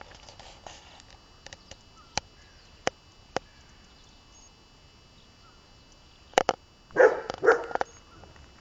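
Dogs barking, a short burst of several barks about seven seconds in, alarm barking at a hot air balloon overhead. Before that, a few sharp isolated clicks over quiet background.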